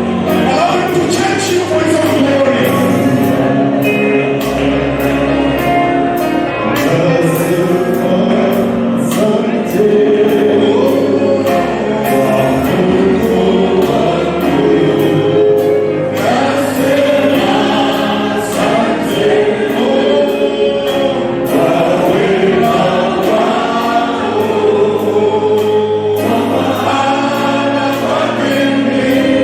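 Choir singing a gospel song with instrumental backing: a steady bass line and a regular beat.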